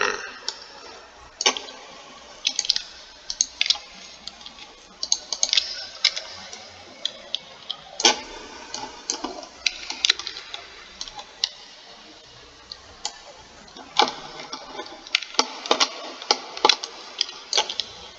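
Computer keyboard keys and mouse buttons clicking irregularly in scattered clusters, some clicks sharper and louder than others.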